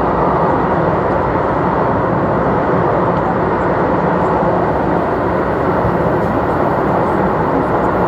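MTR M-train electric multiple unit running through a tunnel, heard from inside the car: a loud, steady rumble of wheels on the rails and running gear, with no change in pace.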